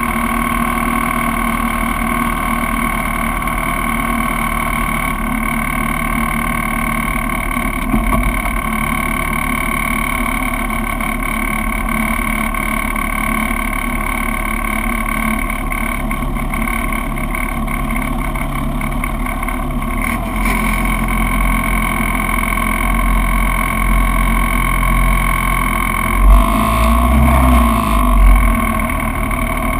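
Spec Racer Ford race car's engine running at a nearly steady pitch. In the last third a low rumble builds, and a couple of short thumps come near the end.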